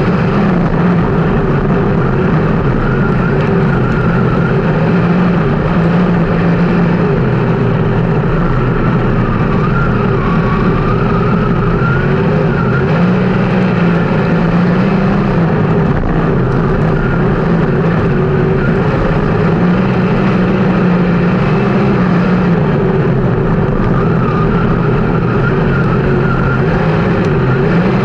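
360 sprint car V8 engines at racing speed, the pitch climbing on the straights and dropping into the corners about every six to seven seconds, lap after lap.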